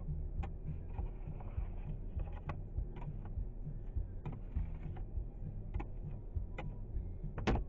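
Steady low rumble inside a moving car, with scattered light clicks and ticks and one louder knock near the end.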